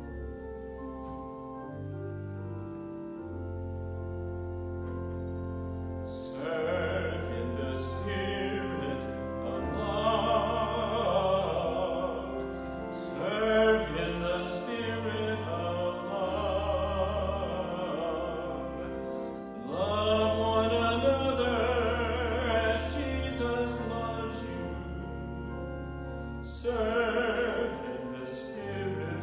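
A sacred song. Keyboard accompaniment plays sustained chords alone at first; then, about six seconds in, a singer comes in with strong vibrato, singing in phrases with short breaths between them.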